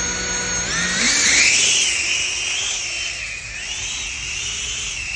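Beta 95X V3 cine whoop drone's brushless motors and 8-blade propellers whining in flight. The pitch climbs about a second in as the throttle comes up, then wavers up and down as the drone manoeuvres.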